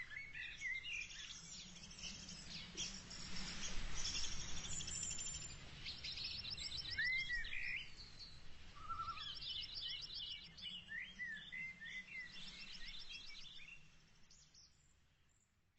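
Small birds chirping and trilling, with quick rattling trills and short slurred whistles, over a faint steady background noise. It fades out shortly before the end.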